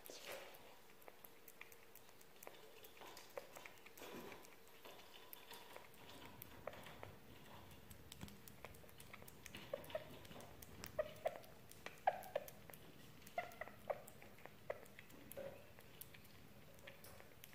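Sugar glider chewing food: faint, irregular small clicks, more frequent and louder in the second half.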